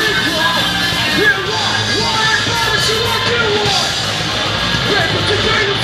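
Punk rock band playing, with yelled vocals over the band.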